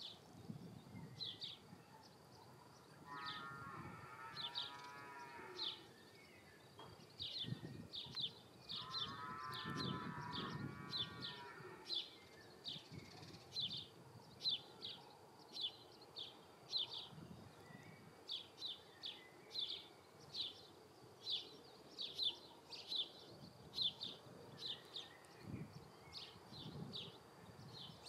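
A cow mooing twice in long, drawn-out calls, with a bird's short high chirps repeating a few times a second throughout.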